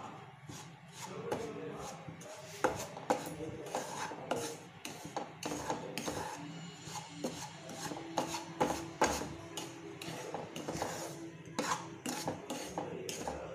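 Wooden spatula scraping and stirring semolina around a nonstick kadhai in repeated quick strokes, dry-roasting the suji in a little ghee on low-medium heat.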